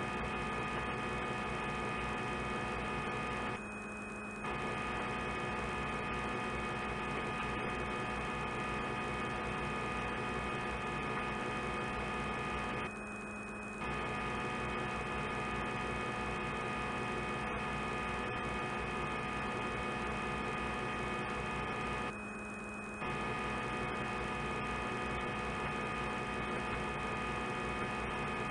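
Simulated CNC lathe machining sound: a steady electric hum made of many fixed tones. It drops out briefly about every nine seconds, the way a looped sound clip does.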